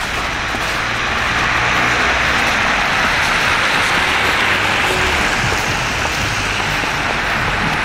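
A van driving past on a wet road: steady tyre hiss that swells to a peak midway and then eases off.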